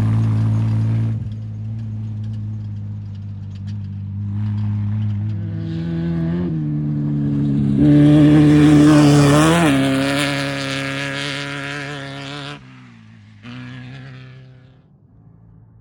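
Off-road race vehicles running flat out on a dirt desert course: one engine drops away about a second in, then another approaches, passes close with a loud rush of tyre and gravel noise and a quick rev around the middle, and fades away near the end.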